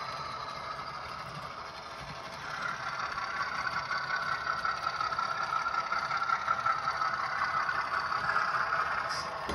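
A model railway sound decoder playing a six-cylinder Alco diesel engine sound through the small speaker of a Dutch NS 2200-class model locomotive as it hauls freight wagons. The engine sound gets louder about two and a half seconds in.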